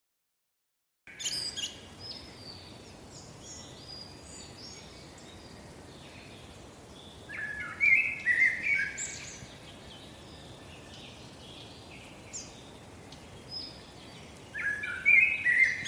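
Small birds chirping and singing over a steady faint outdoor hiss, starting about a second in, with two louder bursts of calls, one in the middle and one near the end.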